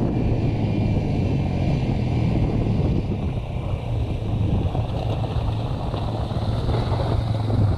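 Honda 400EX quad's single-cylinder engine riding up a dirt trail, growing louder through the middle seconds as it nears, over a steady low engine hum and some wind on the microphone.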